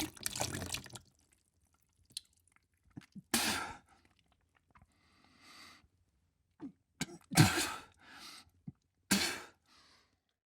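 A person retching and vomiting: a series of separate heaves and gags, the loudest about seven and a half seconds in.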